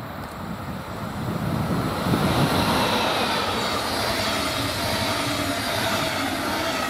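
A DB class 146 electric locomotive and its double-deck coaches pass at speed: wheels on rails make a rushing rumble that swells about two seconds in and stays loud, with a faint whine falling in pitch as the train goes by.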